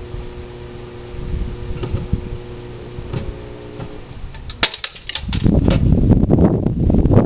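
Failing microwave oven running with a steady electrical hum, its magnetron shorted out and its high-voltage transformer burning out. About four and a half seconds in comes a quick run of sharp crackling snaps, and then wind noise on the microphone takes over.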